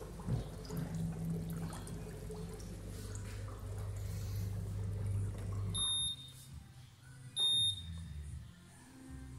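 Whirlpool bathtub's jet pump running with a steady low hum and churning water. About six seconds in, the touch control panel beeps and the pump stops; a second beep follows about a second and a half later.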